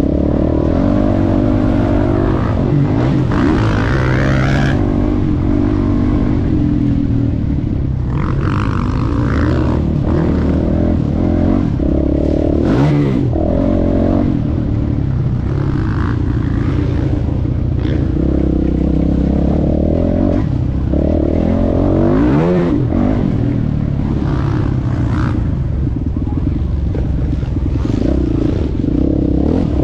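Motocross bike engine at race pace, heard close up from the rider's position, revving up and down over and over as it accelerates, shifts and backs off, with rough noise from wind and the bumpy ride.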